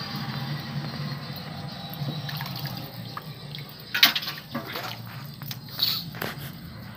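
Splashing and dripping in shallow water as a hand works among submerged stones, with a sharp splash about four seconds in and another near the end, over a steady low hum.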